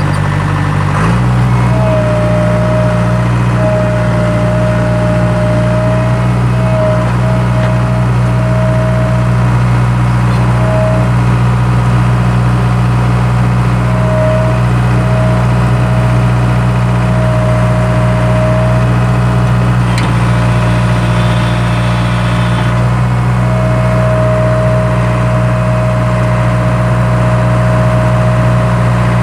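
Skid steer loader engine running steadily, its speed stepping up about a second in and then holding, with a thin whine over it that comes and goes.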